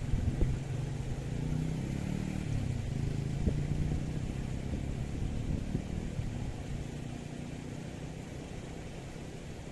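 A motor engine passing by: a low steady hum that fades away over the first several seconds. A steady rushing noise lies underneath.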